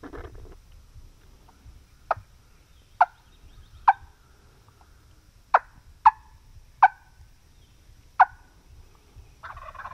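Seven short, sharp turkey clucks at uneven gaps of about half a second to a second and a half.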